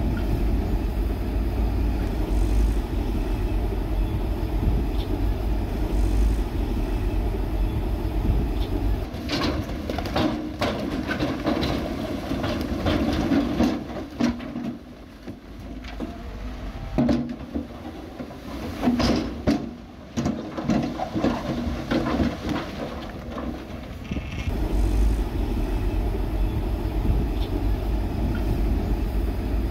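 Heavy diesel construction machinery running steadily. After about nine seconds the engine drops back and a quieter stretch of scattered knocks and clanks follows, and the steady engine comes back a few seconds before the end.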